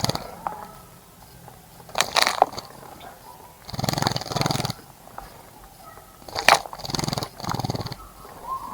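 Animal calls: two low, pitched two-part calls, each preceded by a short sharp sound, with quiet gaps between them.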